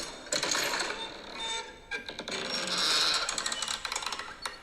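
Creaking-door sound effect, the Ring app's Halloween alert tone, played from a phone: an uneven run of creaks with no steady rhythm.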